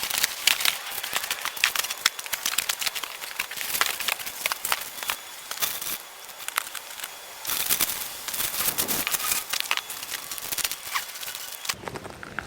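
Cardboard shipping boxes being opened by hand: tape and cardboard crackling and packing material crinkling in dense, irregular clicks, with a short lull about halfway through.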